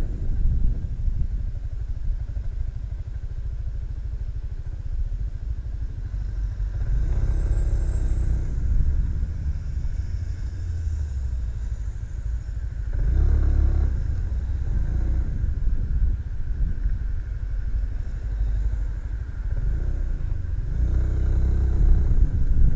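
Motorcycle engine running at low speed in town traffic, recorded from a camera on the bike, with a steady low rumble. The engine note rises three times, about seven, thirteen and twenty-one seconds in.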